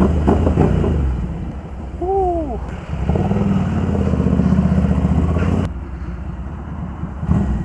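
Ducati Scrambler Icon's air-cooled L-twin engine running at low speed, pulling harder for a couple of seconds in the middle, then easing off. A short falling tone sounds about two seconds in.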